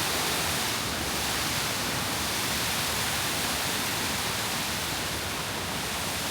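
Steady rush of water cascading over the limestone steps of a waterfall.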